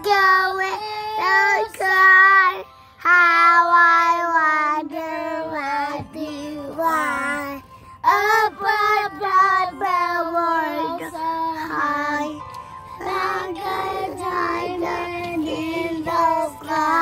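Two young children singing a simple tune in short held notes that step up and down, with a brief pause about three seconds in.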